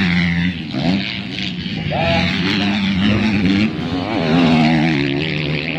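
250cc motocross bike engine revving as the bike comes down the dirt straight, its pitch rising and falling with the throttle and loudest about four seconds in.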